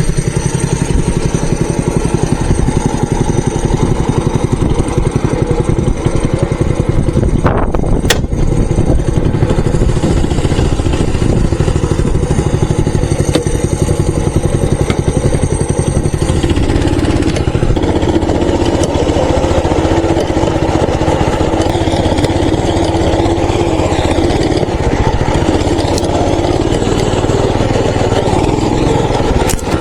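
Mini bike engine running steadily as the bike is ridden, its note shifting about halfway through.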